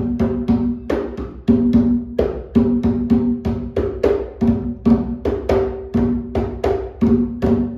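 A small 60 cm atabaque with a goat-skin head played by hand in a steady rhythm of several strikes a second, each stroke ringing with a clear pitched note. The drum is being checked for tuning: it has a good sound but is a little short of its target pitch.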